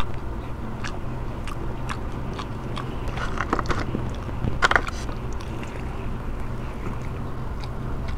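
A person chewing and biting into a fried chicken drumstick, with small wet mouth clicks scattered through and a louder bite about halfway, over a steady low hum.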